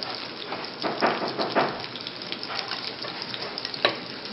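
Shrimp and pumpkin fritters sizzling in hot oil in a frying pan, a steady crackling hiss. A few knife chops on a cutting board come about a second in, and a sharp click near the end.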